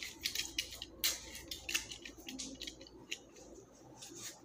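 Leaves and flower stems being handled and trimmed: a run of short, crisp rustles and clicks, several a second, the sharpest about a second in.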